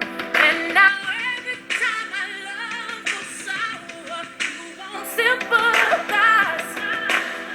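A pop song with a singer played through the HTC 10 smartphone's small built-in speakers, sounding thin with almost no bass.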